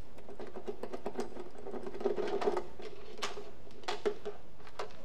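Ratchet wrench clicking in short, irregular runs as the bolts holding the top timing belt cover are undone.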